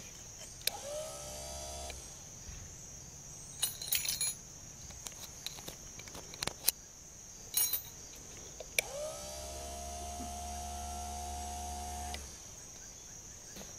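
Vintage Phantom Bantam 12-volt electric trolling motor run out of the water, its bare shaft spinning with a whine that rises as it spins up and then holds steady. It runs once for about a second, then for about three and a half seconds, and stops abruptly. A few sharp clicks and taps fall in between, over a steady chirring of crickets.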